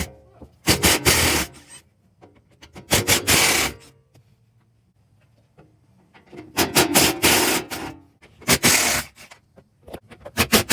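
Hand tools working the Torx T30 screws on an Espar heater's metal casing: five separate bursts of rattling and scraping, each under about a second and a half, with short pauses between.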